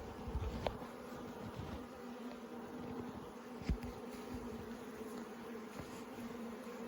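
Honeybees buzzing steadily in a low, even hum around an open hive, with a few soft low bumps about half a second in and again near four seconds.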